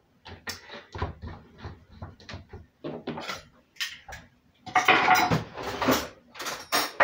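Kitchen dishes and cutlery being handled: a run of light knocks and clinks, then a denser rattle of utensils from about five seconds in.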